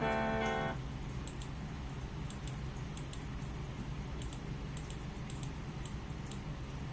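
A held musical chord stops just under a second in. It leaves a low steady background with faint, scattered clicks of a computer keyboard and mouse.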